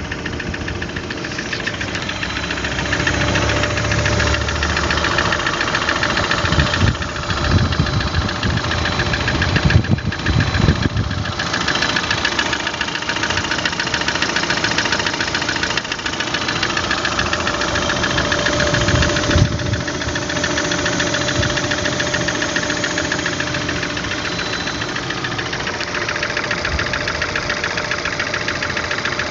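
Engine running with a fast, regular knocking in it: the engine knock the owner is recording as a fault.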